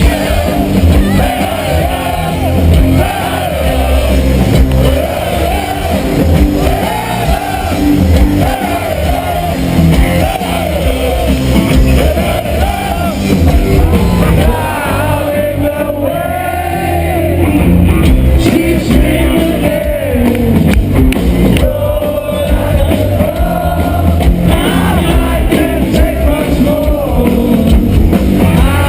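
Loud rock music with a singer, played by a band.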